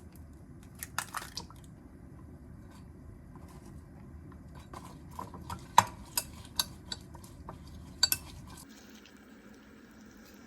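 Dishes clinking and clattering in a series of sharp knocks, over a steady low hum that cuts off near the end.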